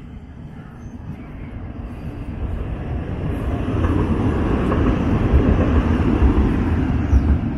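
A large vehicle passing close by, a rumble that builds over the first few seconds, is loudest through the second half, and begins to fade near the end.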